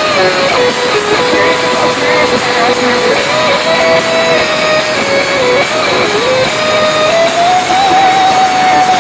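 Rock band playing live and loud: electric guitars and drums, with a single held melody line that steps up and down between a few notes.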